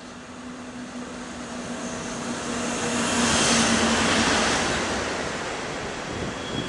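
Electric locomotive hauling passenger coaches approaching and passing close along the platform. The rumble of the train swells to its loudest about three and a half seconds in and then eases as the coaches roll by, over a steady hum from the locomotive that fades after it has passed. A thin high wheel squeal begins near the end.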